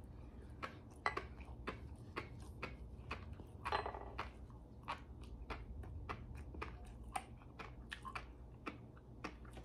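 Close-miked mouth sounds of chewing a spoonful of masago (smelt roe): quiet, scattered little clicks and pops as the eggs burst.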